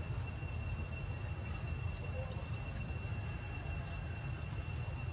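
Outdoor ambience: a steady low rumble with a thin, steady high-pitched whine over it, and a few faint chirps.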